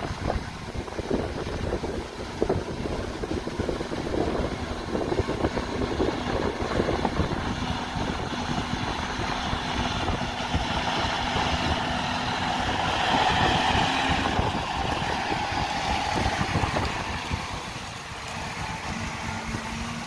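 A John Deere 6195R's six-cylinder diesel working under load as it pulls a Kverneland Vari-Width reversible plough past. The engine note swells loudest about two-thirds of the way through as the tractor comes closest, with wind buffeting the microphone throughout.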